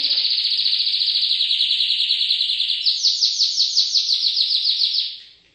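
Domestic canary singing a long, continuous, rapid trilled song. About three seconds in it switches to a higher trill of quick separate notes, then stops shortly before the end.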